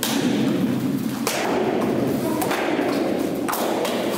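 Four sharp thuds about a second apart, from taekwondo students' kicks, strikes or stamps during the belt test.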